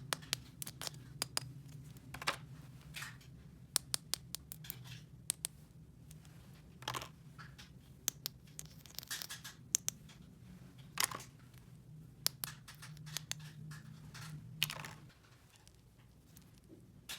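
Small plastic toy pieces and packaging being handled: irregular sharp clicks and taps with short scraping and rustling sounds, over a steady low hum that stops near the end.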